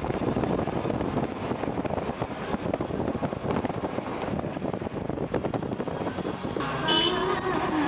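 Car driving along a rough dirt road, engine, tyre and wind noise heard from inside the cabin through an open window, with frequent small knocks from the bumpy surface. A pitched tone comes in near the end.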